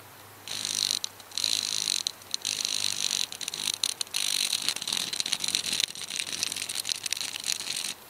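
Red tree-ticker cicada calling in a loud, rapid ticking rattle held on the person's hand. It starts about half a second in, breaks off briefly a few times and stops abruptly near the end.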